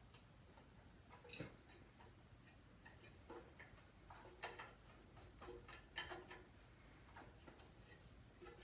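Faint, irregular light clicks and taps of small tools and parts being handled, about a dozen spread over several seconds.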